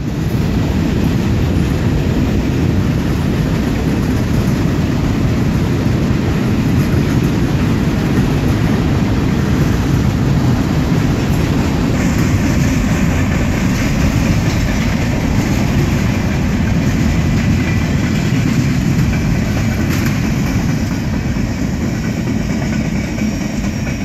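Freight train of tank cars and boxcars rolling past, a steady low rumble of wheels on rail.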